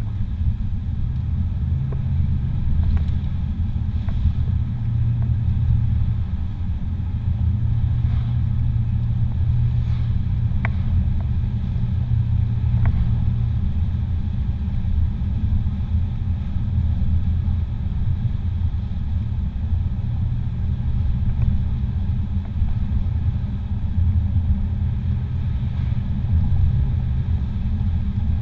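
Steady low rumble of a car driving on a paved road, engine and tyre noise heard from inside the cabin.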